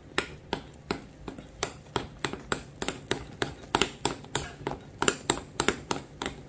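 A stirring utensil clicking against the side of a mixing bowl in a steady rhythm, about three strokes a second, as flour is stirred by hand into a soft nastar cookie dough.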